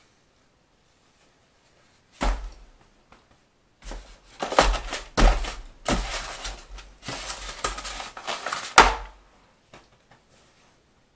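Close handling noise: a thump about two seconds in, then several seconds of knocking and rustling that end in another thump.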